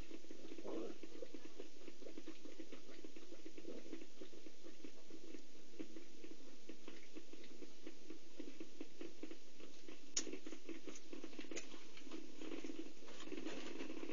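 Cheetahs purring steadily, a fast continuous pulsing rumble, while a mother cheetah nurses her week-old cubs. Two sharp clicks come near the end.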